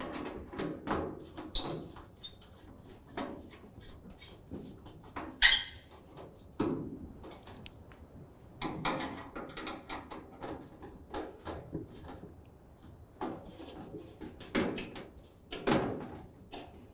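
Phillips screwdriver tightening bolts into the captive nuts of a barbecue's side panels: irregular squeaks, clicks and small metallic knocks as the bolts are turned and the panels shift.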